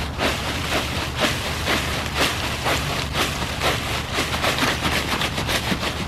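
Footsteps in rubber boots wading through a thick layer of fallen leaves, a quick irregular run of rustling crackles, over a steady low rumble.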